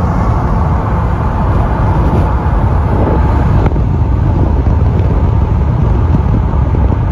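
A car driving at speed, heard from inside: steady, loud road and wind noise.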